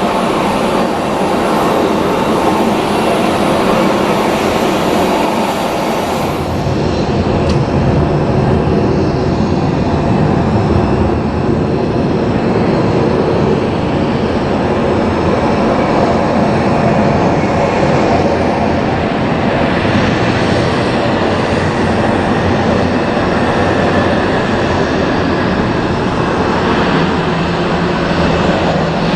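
Airliner jet engines running loud and steady: first a Boeing 737-700's CFM56 turbofans, then, after a cut about six seconds in, an Airbus A350-900's Rolls-Royce Trent XWB turbofans with more low rumble.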